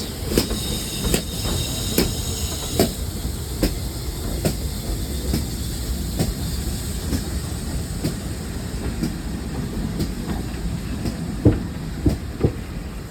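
Steam train hauled by the GWR Castle class 4-6-0 Pendennis Castle rolling along the track with a steady rumble. Its wheels click over the rail joints about once a second, with a few clicks close together near the end.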